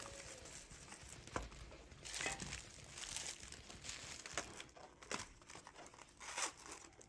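Plastic wrapping being crinkled and torn open on a box of trading cards, in soft irregular rustles with a few sharp crackles.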